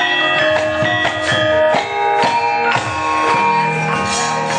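Javanese gamelan ensemble playing: ringing bronze metallophone notes that sustain and overlap, with sharp struck strokes through them.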